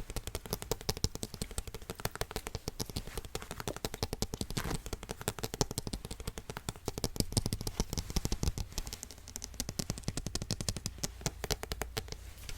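Rapid, irregular light tapping and clicking, several taps a second, with some scraping: art tools handled close to the microphone.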